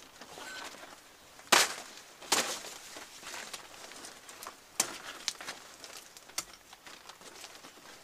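Peach-tree twigs cracking and rustling as branches are pulled and snapped by hand: a handful of sharp, irregular cracks, the loudest about one and a half seconds in and just after two seconds, with smaller ones later.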